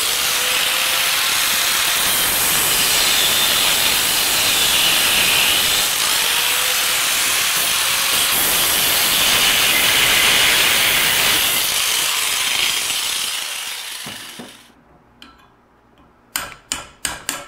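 Angle grinder with a cutoff wheel cutting a glob of weld off a VW front spindle, a loud steady hiss of wheel on metal. About thirteen seconds in it comes off the work and winds down, and a few sharp clicks follow near the end.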